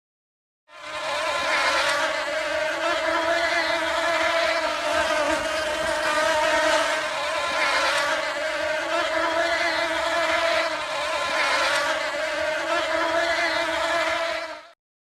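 Honey bee buzzing: a steady, slightly wavering wingbeat buzz with a clear pitch and many overtones. It starts about a second in and cuts off just before the end.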